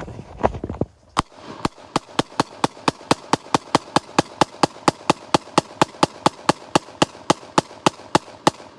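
Micro AR pistol being fired in a long rapid string: about thirty sharp gunshots at a steady four to five a second, starting about a second in. A few low thumps come before the first shot.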